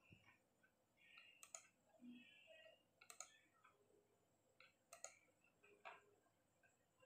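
Faint computer mouse clicks against near silence: a handful of short, sharp clicks spread a second or two apart.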